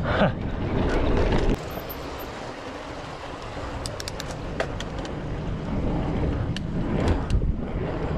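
Mountain bike rolling downhill: tyre rumble and wind on the mic, loud at first and dropping to a quieter rolling noise about a second and a half in as the bike crosses onto a steel-grate bridge, with scattered sharp clicks and rattles from the bike.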